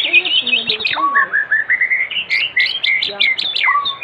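White-rumped shama (murai batu) singing a varied song: a fast trilled warble at first, then a string of rising and falling whistled notes.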